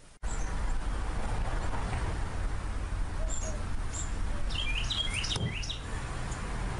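Outdoor ambience: a steady low rumble, with small birds chirping a few times and a quick run of chirps near the middle.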